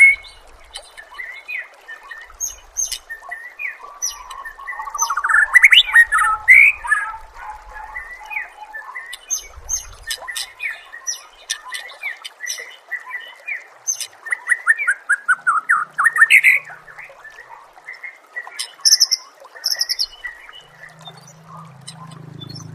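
Songbird song from a caged-bird training recording: a busy, varied stream of chirps, whistles and rapid trills. Fast runs of notes stand out at about five seconds in and again at about fourteen to sixteen seconds in.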